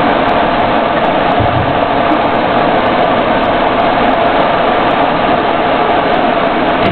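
Engine and road noise of a moving military convoy vehicle heard from inside its cab: a loud, steady rumble with a constant droning tone.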